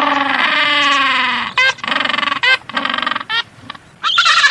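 Penguin calls: one long call of about a second and a half, then a run of short calls, with another call near the end.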